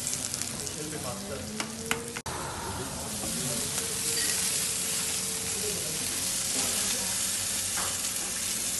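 Food sizzling in a Rational iCombi Pro combi oven: fish frying in oil on a griddle tray and chicken and kebabs roasting, a steady hiss of spitting fat and juices. A few light clicks come about two seconds in.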